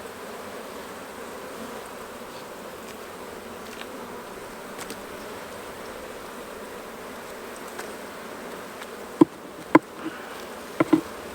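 Honeybee colony buzzing steadily around an opened hive, the bees a little upset from the inspection. A few sharp knocks sound near the end.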